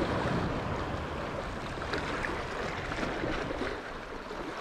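Sea water washing and splashing against shoreline rocks, a steady hiss of surf.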